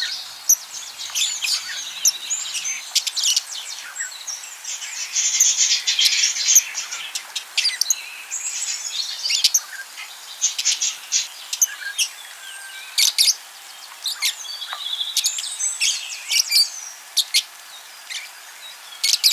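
A group of budgerigars chirping and chattering, with many short high calls overlapping without a break.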